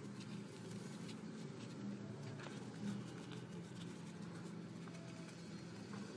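Paper rustling and crinkling in faint short ticks as hands shape the folds and wings of an origami paper crane, over a low steady background hum.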